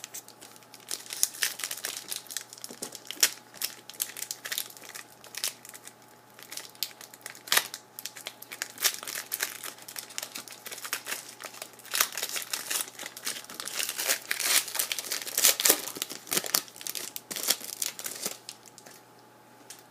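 Plastic foil wrapper of a hockey card pack crinkling and tearing as it is opened, a dense run of crackles that stops near the end.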